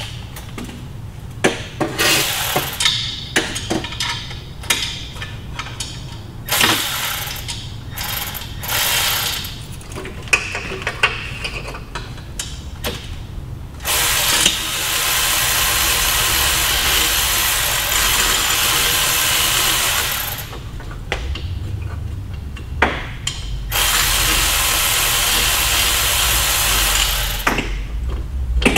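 Mechanic's tools working on a car's engine and drivetrain parts: scattered metal clicks, knocks and short tool bursts, then two steady noisy runs of several seconds, one starting about halfway through and one near the end.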